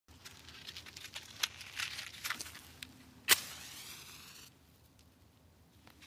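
Bonfire crackling with scattered sharp pops. The loudest is a snap a little past halfway, followed by about a second of hiss, and after it the crackling thins to a few faint ticks.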